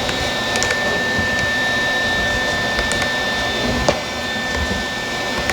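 A steady machine whir with a constant high-pitched whine, like a running fan or motor, with a few faint light ticks of metal being handled.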